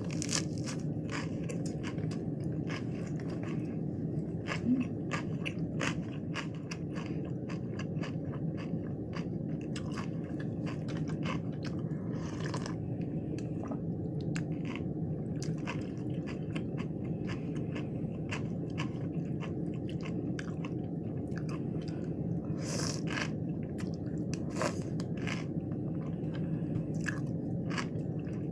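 Close-miked crunchy chewing and biting of lettuce wraps with raw peppers and cucumber: a steady run of crisp crunches, with one especially loud bite about five seconds in, over a steady low hum.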